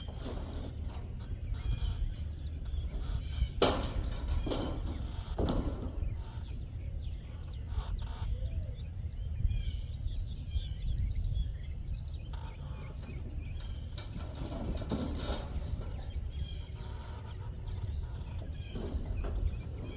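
Birds chirping over a steady low rumble, with a few sharp knocks scattered through.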